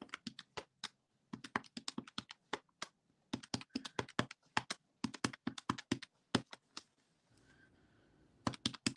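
Keys of a desktop calculator being pressed in quick runs of sharp clicks while sums are added up, with a pause of about a second and a half near the end before a few more presses.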